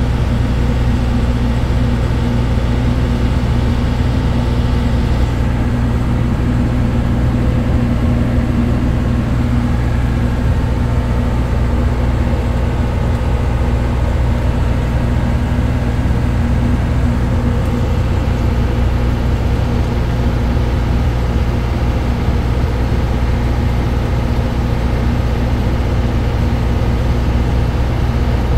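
Steady, loud low drone of a ship's engine machinery running, a deep hum that holds unchanged throughout.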